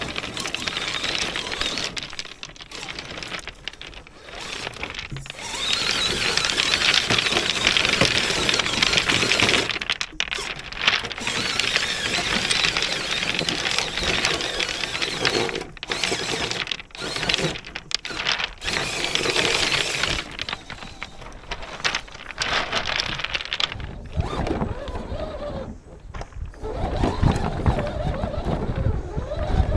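Electric motor and gear drive of a 1/8-scale RC crawler whining as its tyres grind over loose beach pebbles, broken by several short gaps. Low rumble from wind on the microphone near the end.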